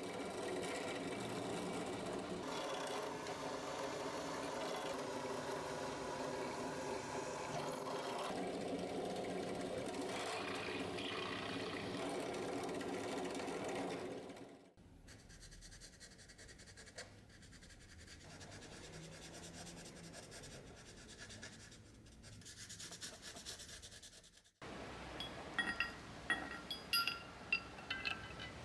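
Benchtop drill press running steadily while drilling holes through an aluminium sword handle, for about the first half. It then gives way to faint scratching as a scribe marks the aluminium, and a run of light clicks near the end.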